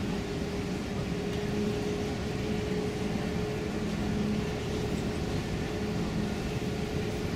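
Steady low drone of a large container ship's machinery with a constant hum on top, unchanging in level.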